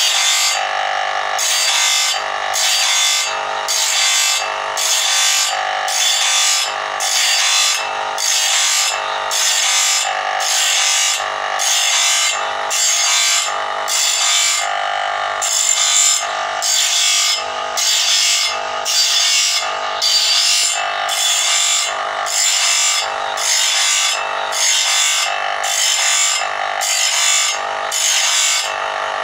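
Electric motor-driven abrasive disc grinding the teeth of a sawmill band saw blade one after another: a rasping grind that swells and eases in an even rhythm, about three strokes every two seconds, as each tooth is pressed to the disc, over the motor's steady running.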